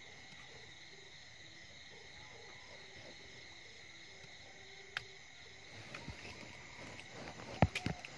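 Insects trilling steadily, with a faint run of short, evenly repeated low calls through the first half. A single sharp click comes about five seconds in, then rustling and a few louder knocks near the end.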